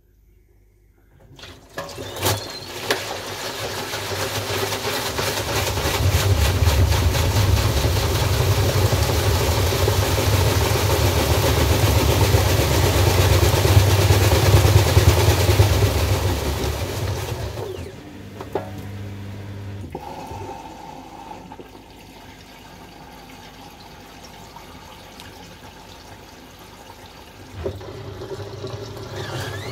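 Samsung front-loading washing machine spinning its loaded drum in service mode: motor hum and a rushing spin build up over the first few seconds. The spin cuts back sharply about two-thirds of the way through to a quieter steady hum, and the drum starts turning again near the end.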